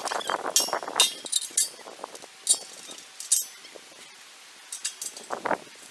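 A handful of light, sharp metallic clinks and taps, irregularly spaced, then a short mid-pitched sound about five seconds in.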